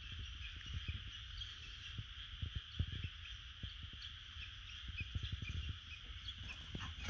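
Scattered soft thuds of footfalls on the ground, irregular and a dozen or more, over a steady high-pitched hum.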